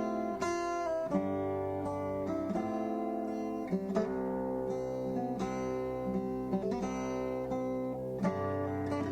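Acoustic guitar music, plucked and strummed chords.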